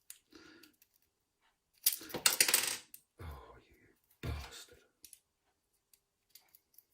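Small metal lock parts and tools clinking and rattling together on a hard work surface in a quick flurry, followed by two dull knocks as something is set down.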